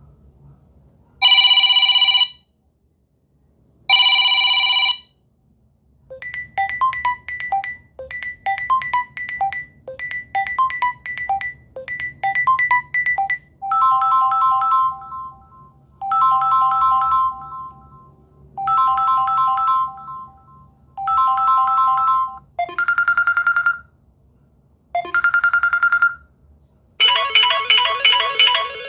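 Samsung Galaxy A20s ringtones: short electronic melodies whose phrases repeat with gaps between them. The pattern changes several times: two long beeps at first, then quick runs of notes, then repeated chords, then single high tones, and a denser new tune near the end.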